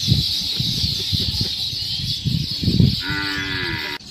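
Cattle lowing: low rumbling sounds, then a clear, held moo near the end that drops slightly in pitch as it stops, over a steady high hiss.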